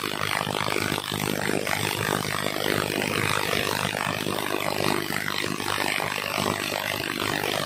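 Total cordless impact driver hammering steadily as it drives a bolt into a wooden stump, a dense rapid rattle of impacts.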